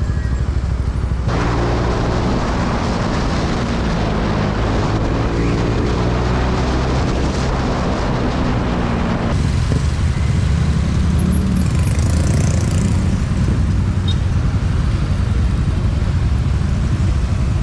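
Suzuki Gixxer 250's single-cylinder engine pulling away and accelerating up through the gears, with wind rushing over the microphone. About nine seconds in the wind noise falls away as the bike slows, leaving the engine running at low speed.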